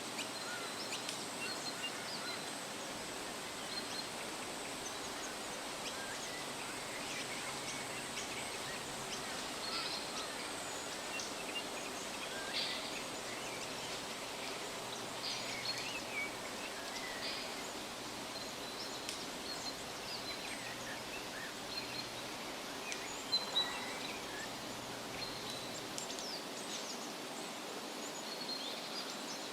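Forest ambience: assorted birds chirping in short, scattered calls over a steady background hiss. Two quick, sharp clicks come close together about three quarters of the way through.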